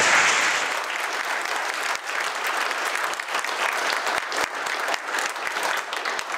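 Audience and panelists applauding, a dense run of hand claps that is loudest in the first second and then holds steady.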